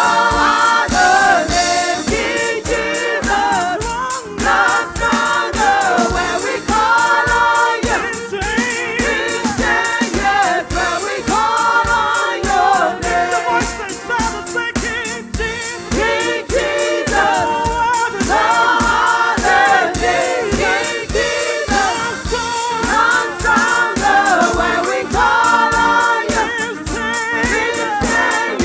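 Gospel worship singing by a choir or group of voices, backed by a band with a steady drum beat.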